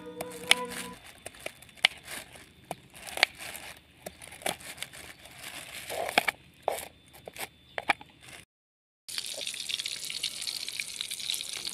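Knife chopping winged beans on a wooden chopping board: sharp, irregular taps and crunches. After a short gap near the end, tofu frying in hot oil in a wok gives a steady sizzle.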